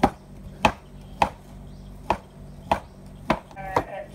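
Cleaver chopping a sausage into slices on a bamboo cutting board: seven sharp knocks of the blade on the board, roughly one every half-second.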